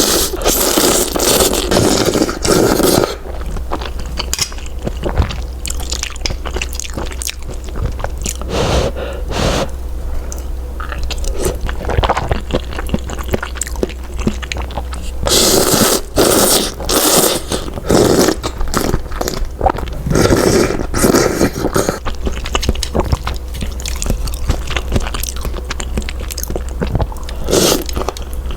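A person eating malatang noodles close to the microphone: irregular chewing and crunching, with louder stretches of eating noise a couple of times.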